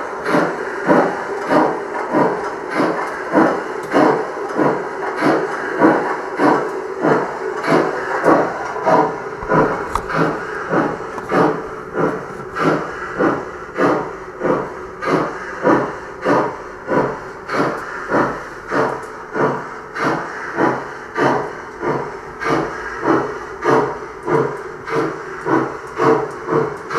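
Gauge 1 model BR 50 steam locomotive chuffing steadily, an even beat of about three chuffs every two seconds.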